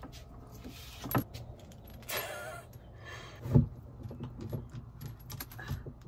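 Metal clinks and rattles as a pull-down kitchen faucet and its braided supply hoses are handled and fitted together. There is a short scraping rustle about two seconds in and a dull knock halfway through, the loudest sound.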